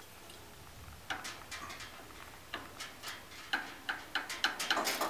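Irregular light clicks and taps of small metal barbecue parts being handled and fitted at the side burner. They start about a second in and come thicker near the end.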